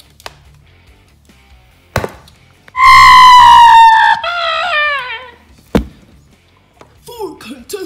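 A sharp bang, then a very loud, high cry that falls slowly in pitch for about a second and drops into a lower, wavering, falling wail. A second bang comes about two seconds after the cry ends.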